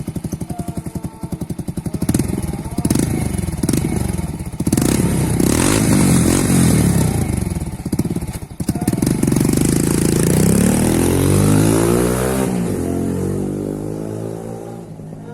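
Honda Pop 100 single-cylinder four-stroke engine with an aftermarket 2-into-1 exhaust firing up and running with a rapid, even pulse, then revved several times. Near the end its pitch climbs steadily, drops suddenly, and the sound fades away.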